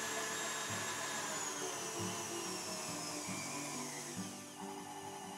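KitchenAid stand mixer running with its wire whisk, beating praliné into a thick custard cream in the steel bowl. The motor runs steadily and grows a little quieter near the end.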